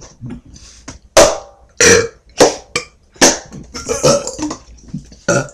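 A person belching repeatedly: a run of about six short, loud burps, starting about a second in and following one another every half second to second.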